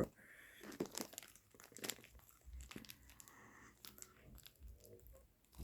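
Faint crinkling and scattered light clicks of packaging being handled.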